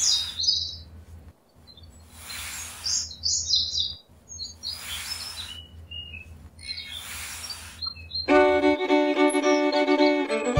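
Birds chirping in short high bursts, with a soft whooshing swell about every two and a half seconds. Music made of sustained steady tones comes in about eight seconds in.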